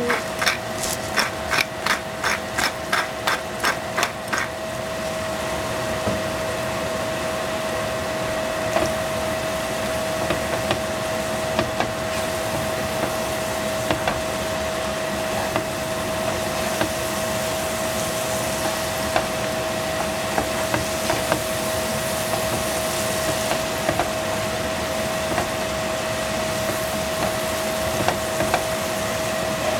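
Seasoning shaken from a hand-held container over a frying pan, clicking about three times a second for the first four seconds. Then a wooden spatula stirs mushrooms in the nonstick pan, with light scattered knocks against the pan, over a steady hum that carries one constant tone.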